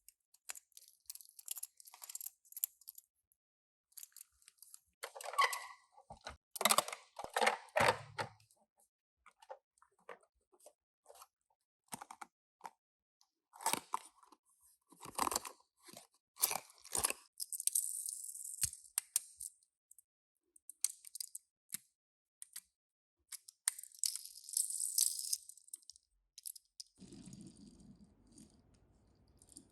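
Hands opening small toy packaging: irregular crinkling, crackling and rustling of plastic and cardboard, with scattered clicks and taps. A faint low hum sets in near the end.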